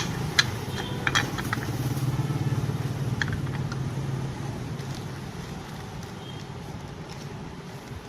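Electric fan running with a steady low motor hum and a faint rapid flutter, with a few sharp clicks or rattles in the first few seconds; the hum grows gradually quieter through the second half. This is the unwanted noise of a fan in need of fixing.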